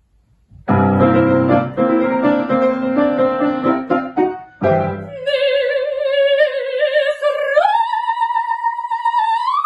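Piano plays a few introductory chords, then a coloratura soprano enters about five seconds in on a held note with vibrato and climbs in two steps to higher sustained notes: the opening of an operatic cadenza.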